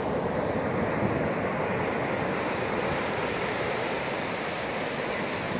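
Ocean surf washing onto a sandy beach, a steady, unbroken rush of waves.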